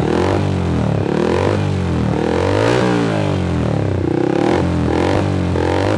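Motorcycle engine revved in quick repeated throttle blips through an aftermarket MIVV slip-on muffler with its dB killer fitted, the exhaust note rising and falling in pitch over and over.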